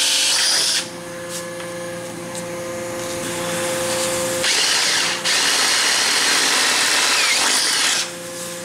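Cordless drill boring a hole through the cowling of a Veterok 8 outboard motor. It runs at full speed with a whine for the first second, then quieter for a few seconds. About halfway it runs at full speed again, with a brief break, until near the end.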